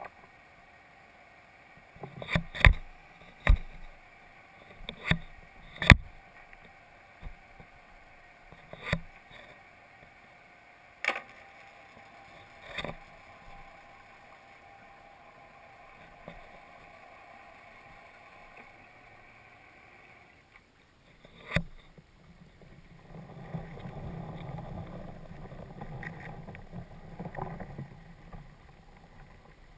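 Sharp knocks and clicks on a camera's underwater housing, then from about 23 s in a rumbling rush of moving water.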